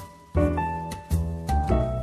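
Background piano music: struck notes fading away over a low bass line.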